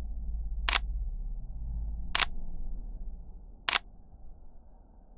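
Three camera shutter clicks, evenly spaced about a second and a half apart, over a low rumble that fades near the end.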